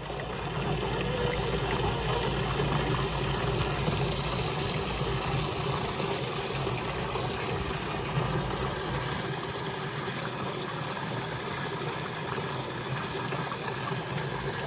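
An engine running steadily at low revs.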